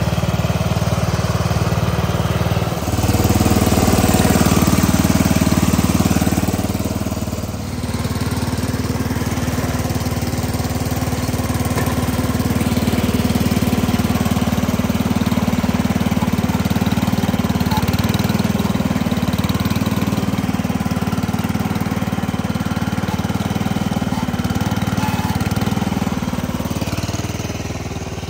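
Sears Suburban 12 garden tractor's small engine running steadily. It runs louder for a few seconds from about three seconds in, then settles back to an even run.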